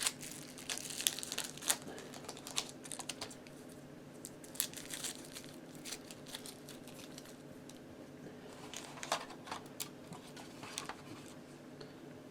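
Plastic crinkling and scattered small clicks from batteries and a plastic smoke/carbon monoxide alarm being handled as the batteries are put in, busiest in the first few seconds with a few isolated clicks later.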